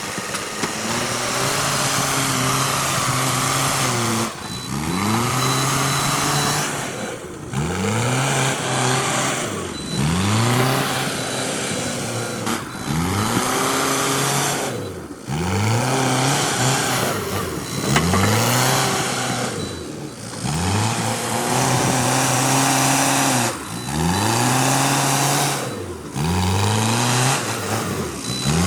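Backhoe loader's diesel engine revving up under load and dropping back, over and over about every two and a half seconds, with a thin steady high whine.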